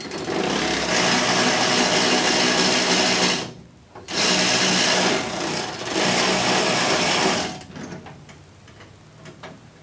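Power ratchet running in two bursts of about three and a half seconds each, with a short pause between, spinning a signal-light mounting nut off from under the fender. Faint clicks follow.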